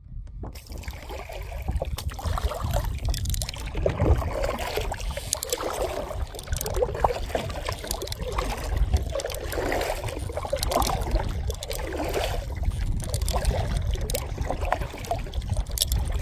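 Kayak paddle dipping and splashing in the lake with water lapping against the plastic hull, over a low rumble of wind on the microphone.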